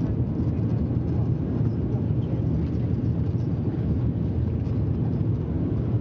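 Cabin noise inside a Bombardier Dash 8 Q400 on approach: the steady low drone of its turboprop engines and propellers with rushing airflow, unchanging throughout.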